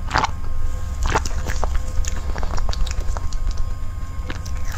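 Close-miked gulps of a drink, with two loud swallows in the first second or so, followed by small mouth clicks over a steady low rumble.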